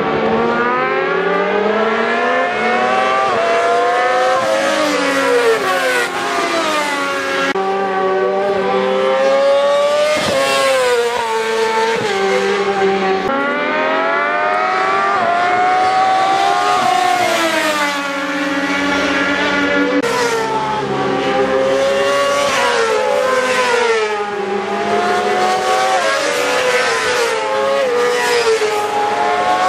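Several racing motorcycle engines at high revs, overlapping. Their pitch climbs steadily through each gear, drops sharply at each upshift and at times slides down as the bikes slow.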